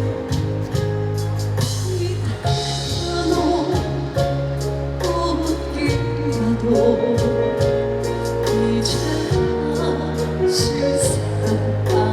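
A woman singing a trot song live over a backing track with sustained bass and a steady drum beat.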